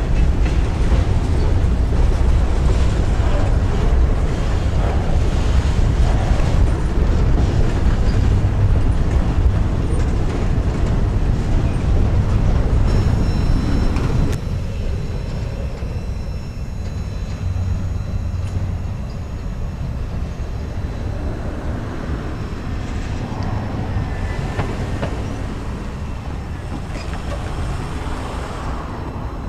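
Freight train's boxcars and covered hoppers rolling past on the rails, a steady low rumble. About halfway through it drops suddenly to a quieter, more distant rumble as the rear of the train moves away.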